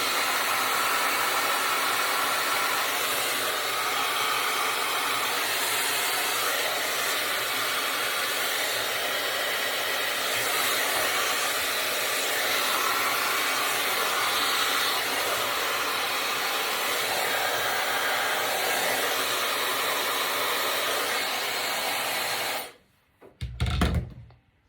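Dyson hair dryer with its diffuser attachment running steadily, a constant rush of air, switched off near the end and followed by a short thump.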